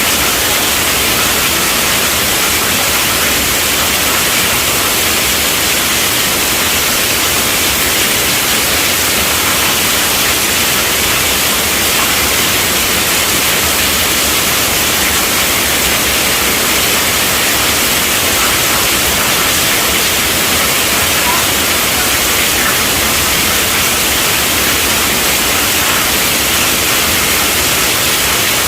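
Heavy rain falling on a tent roof, a dense, steady hiss with no breaks or thunder claps.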